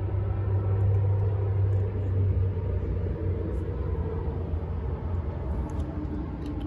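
Steady low rumble, a little louder during the first couple of seconds.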